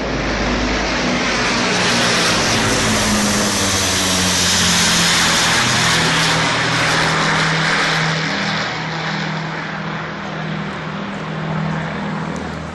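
Avro Lancaster bomber's four Rolls-Royce Merlin piston engines passing low overhead. Their drone swells to its loudest midway, then drops in pitch and fades as the plane flies off.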